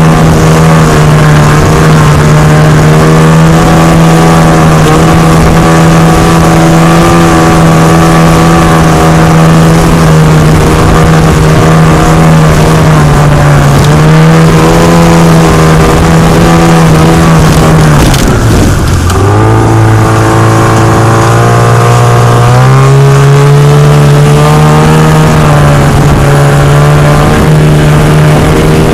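Outboard motor on an inflatable boat running at speed, a steady engine tone that drops sharply when the throttle is eased about two-thirds of the way through, then climbs back a few seconds later. A constant rush of noise, from the spraying wake and the wind, lies over it.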